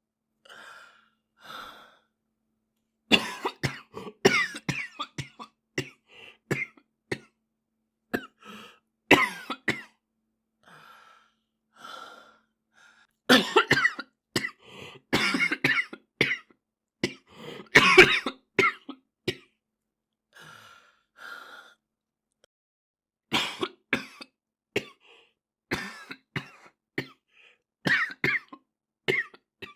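A boy coughing in repeated fits, each a cluster of several sharp coughs, with short, quieter pauses between the fits.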